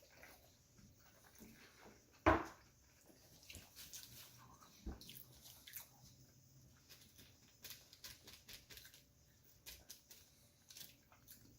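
Close-up chewing and wet mouth smacking of someone eating a burger: scattered soft clicks, with one sharp knock a little over two seconds in.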